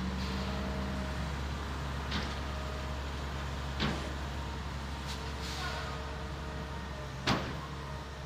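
Steady low vehicle rumble, with sharp clicks about two, four and seven seconds in; the last click is the loudest.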